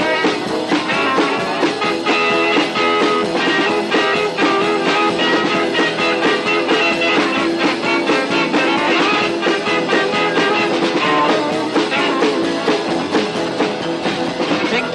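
Instrumental break in a 1950s rock and roll record: guitar over a steady driving beat, with no singing.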